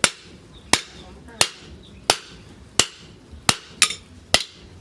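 Hand hammer blows on steel at the anvil while forging an axe head: about eight sharp, ringing strikes at a steady pace of roughly one every 0.7 s, with two coming close together near the end.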